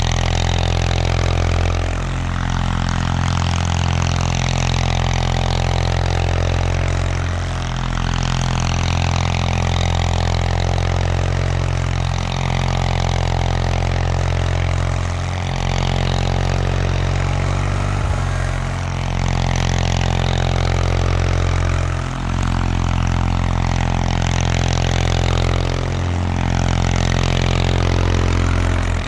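1979 Bolens HT-23 garden tractor's 23 hp Kohler K582 opposed-twin engine running steadily, its level and pitch dipping briefly every few seconds.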